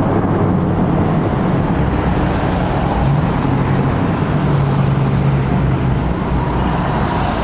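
Steady road and engine noise of a moving vehicle, with a low engine hum that rises in level for a few seconds in the middle.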